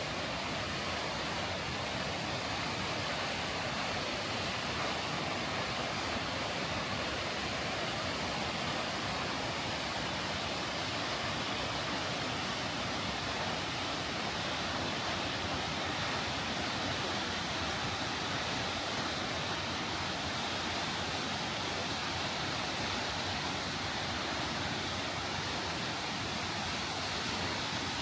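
Steady, even rush of falling water from Kegon Falls, a tall plunge waterfall.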